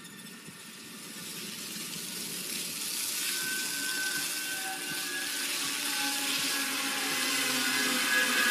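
Film sound design: a rushing noise that swells steadily louder, with a few faint held tones over it from about three seconds in.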